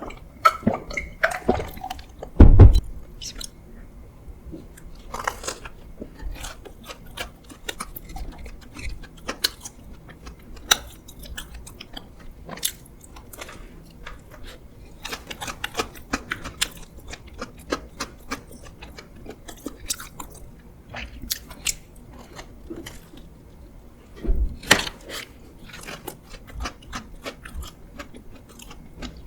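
A person eating close to the microphone, chewing and biting soft desserts with wet smacking and small crunches. There are two louder knocks, one a couple of seconds in and one near the end.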